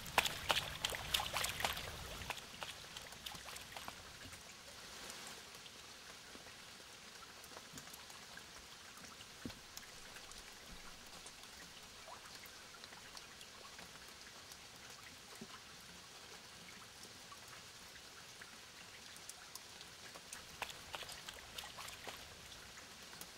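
Red deer splashing through a shallow river: a burst of splashing and crackling water as a hind leaps in, a faint patter of water in between, and more splashing near the end as a stag bounds through.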